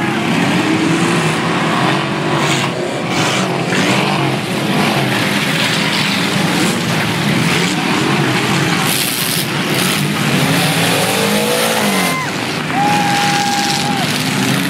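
A pack of junk race cars' engines running hard on a dirt track, several at once, their pitch rising and falling as they rev and back off. A short steady high squeal sounds about thirteen seconds in.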